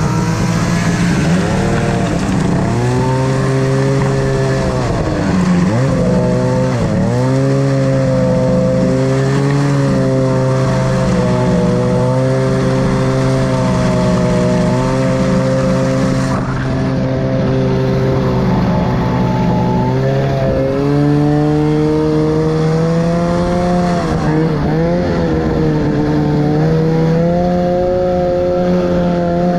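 Two-stroke mountain snowmobile engine running at speed while the sled runs through shallow river water and on up the trail. The revs drop and climb sharply twice, about five to seven seconds in and again near the 24-second mark, otherwise holding a steady high note.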